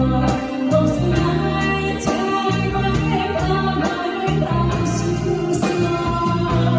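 Music: a pop song with a steady beat, a woman singing over the backing track.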